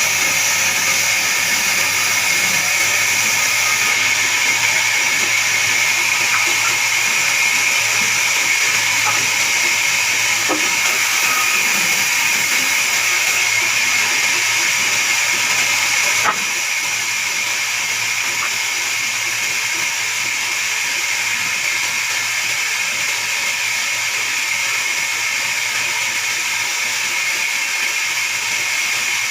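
Horizontal band sawmill running steadily, its blade cutting through a log: a dense hiss with a steady high whine over a low motor hum. It drops slightly in level about 16 seconds in.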